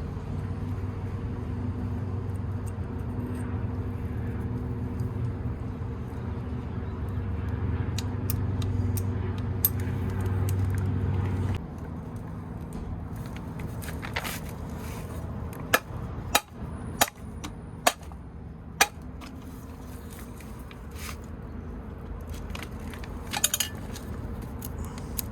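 A steady low hum that cuts off suddenly about eleven seconds in, followed by a handful of sharp clicks and taps of small metal parts being handled during disassembly of the motor.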